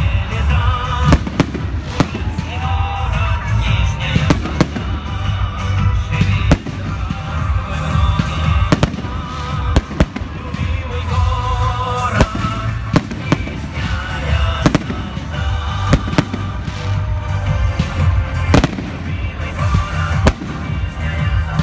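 Aerial fireworks display: a continuous barrage of shell bursts, sharp bangs at irregular intervals over a constant low rumble.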